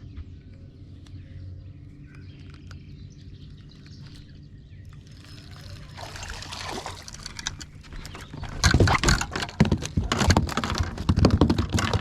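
A hooked crappie thrashing and splashing at the water's surface as it is brought into the boat, a rapid jumble of splashes and knocks that starts about six seconds in and turns loud a couple of seconds later.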